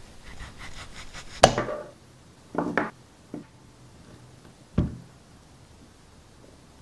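A knife sawing through a modelling-clay tomato in quick even strokes, about seven a second, ending in a sharp knock about a second and a half in. A few more knocks follow as the clay pieces are handled.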